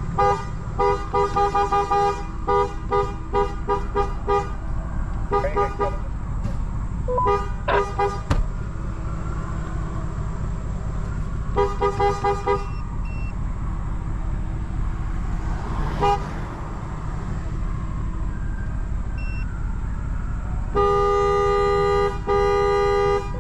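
Vehicle horn honking: a run of quick repeated toots, a few more scattered honks, then two long blasts near the end, over a low idling rumble. The honking is meant to turn the hunting dogs and the deer back toward the hunt.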